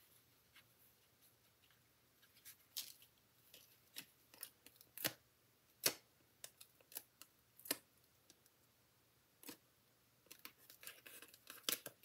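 Foam adhesive dimensionals being peeled one by one off their paper backing sheet. Faint, scattered sharp ticks and crackles, about a dozen, at irregular intervals.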